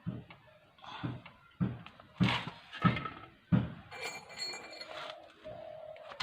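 Metal knocks and clinks of a spanner loosening the engine oil drain bolt on a Hero Honda Glamour motorcycle, about one knock every half second or so, with a short metallic ring about four seconds in.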